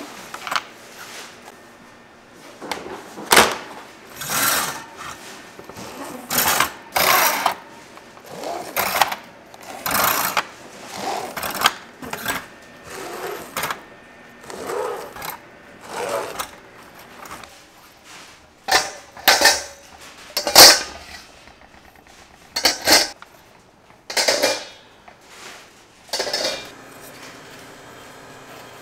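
Irregular handling noises: a string of short clatters and rustles, each from a fraction of a second to about a second long, with the loudest about twenty seconds in.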